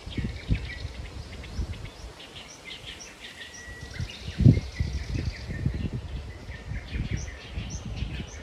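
Several small birds chirping and calling, with one clear held whistle about two and a half seconds in. Underneath are irregular low thumps and rumble, the loudest about four and a half seconds in.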